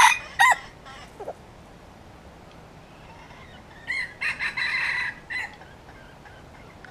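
Wild red junglefowl rooster crowing. A loud crow ends just after the start, a short call follows about a second in, and a second, fainter crow comes about four seconds in.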